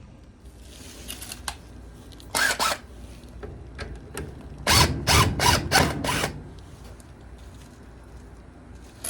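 Crescent wrench working a dryer blower loose from its motor shaft: metallic clicks and a short burst of metal noise about two seconds in, then about five quick strokes in a row a little past halfway.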